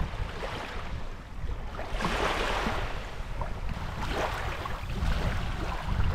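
Small waves lapping onto a coarse sand beach, washing in a few surges, with wind rumbling on the microphone.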